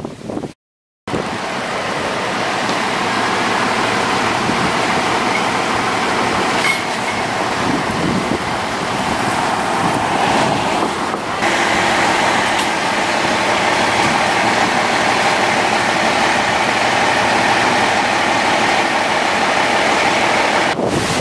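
Steady drone of a vehicle engine running, with a brief dropout near the start and an abrupt change in its tone about halfway through.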